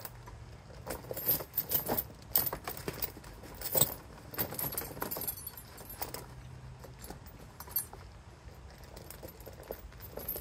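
Steel V-link tire chain jingling and clinking as it is handled and pulled into place on an ATV tire, in irregular bursts of rattling that are busiest in the first half.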